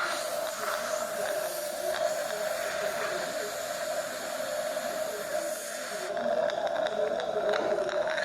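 Dental treatment equipment running with a steady hum and a hiss over it; the hiss cuts off about six seconds in while the hum carries on.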